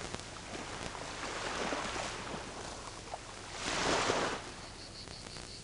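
Gentle surf washing on a sandy beach, a soft wash of noise that swells a little in the middle and most strongly about four seconds in.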